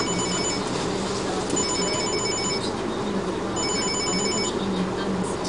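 Electronic bell-like alarm trilling in bursts about a second long and a second apart, three times, over steady machinery noise and a low hum.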